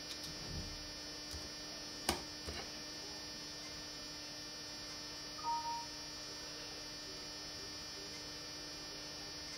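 Steady electrical mains hum with a faint buzz, broken by a single sharp click about two seconds in and a brief two-note electronic tone a little past halfway.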